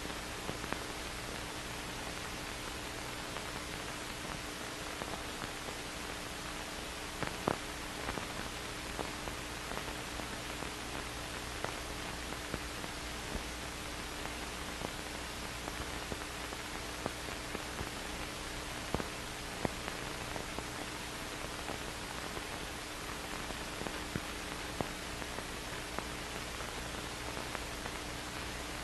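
Steady hiss of an old film soundtrack's noise floor, with a faint constant hum and a few scattered clicks.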